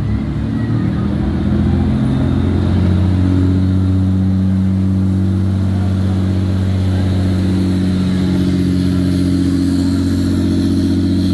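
A motor vehicle's engine running close by at a steady low speed, its pitch unsettled for the first couple of seconds and then holding even.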